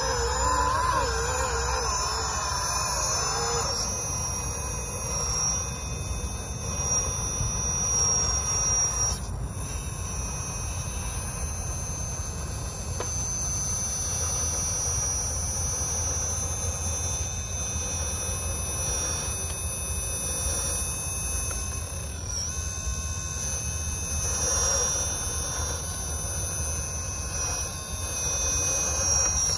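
Electric drive of an RC scale 6x6 trial truck whining as it crawls along, with high steady whines and a wavering lower whine in the first few seconds, over a constant low rumble.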